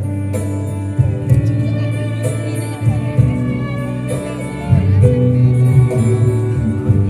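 Live band music through PA speakers: guitars over a steady bass line, with drum hits and singing.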